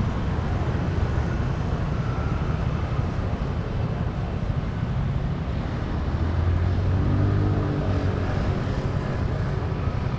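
Street ambience: a steady low rumble of traffic noise. A vehicle engine swells and passes from about six to eight seconds in.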